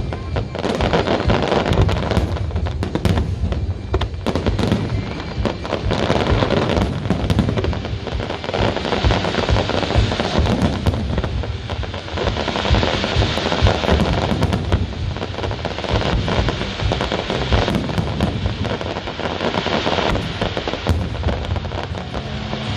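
Fireworks display: a dense, continuous barrage of shells bursting, with bangs and crackling overlapping one another without a break.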